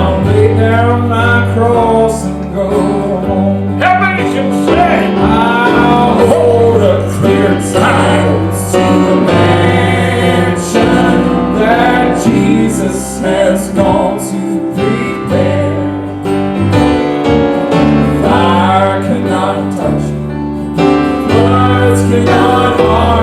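A man singing a southern gospel song over instrumental accompaniment with a steady bass line.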